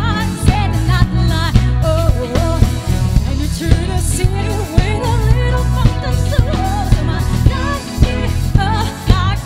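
Four-piece party band playing a pop song live: a woman singing lead over drum kit, electric guitar and keyboard, with heavy bass and a steady beat.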